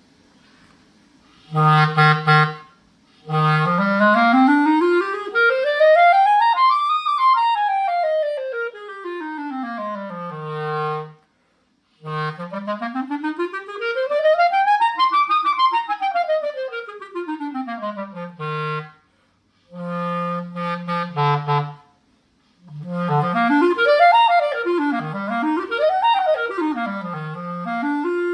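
Backun Alpha clarinet played with a Legere French cut synthetic reed, size 3 1/4. It plays a short low note, then a long scale from the bottom of the range up about three octaves and back down, twice over. After some short low notes come fast up-and-down arpeggios. The player hears the reed as brighter than the Legere European cut.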